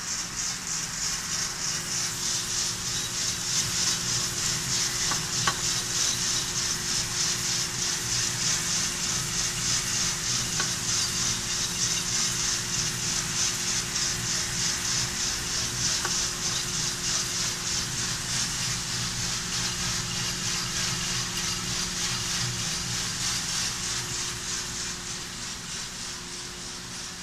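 Coffee beans tumbling in the rotating drum of a Probat GG150 roaster during a roast: a steady hissing rustle with a fast, even pulse, over a low hum from the roaster's motors and fan. It grows a little quieter near the end.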